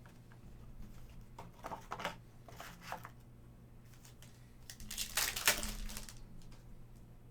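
Trading cards and their plastic packaging being handled: light rustles and clicks, then a louder crinkle of wrapper plastic about five seconds in.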